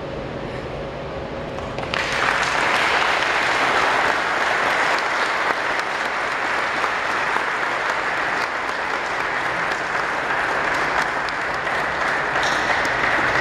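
An audience applauding, starting suddenly about two seconds in and going on steadily. Before it there is a quieter steady background with a faint hum.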